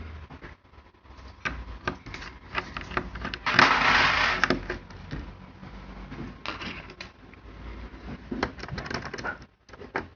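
Irregular clicks and taps of plastic and metal laptop parts being handled and pried during disassembly of an HP ProBook 4710s, with a scrape lasting about a second roughly three and a half seconds in.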